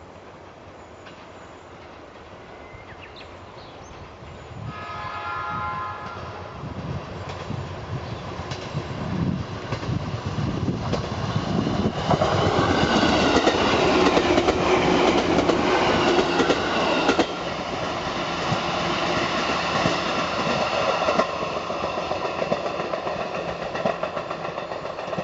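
JR East 205 series electric train approaching and passing at speed, its wheels rumbling and clacking over the rail joints. It sounds its electronic horn, briefly about five seconds in and then loud and long for about five seconds as it passes, as a warning for an unguarded level crossing ahead.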